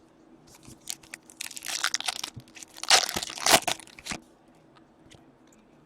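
Foil wrapper of an O-Pee-Chee Platinum hockey card pack crinkling and tearing as it is ripped open, in uneven bursts from about half a second to four seconds in, with light clicks of card handling.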